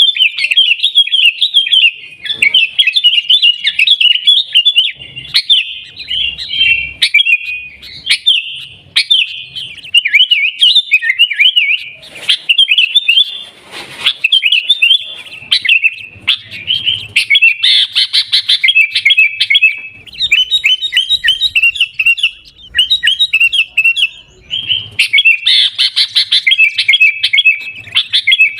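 Sooty-headed bulbul (kutilang) chattering loudly in a fast, almost unbroken stream of short chirps, pausing only briefly a few times.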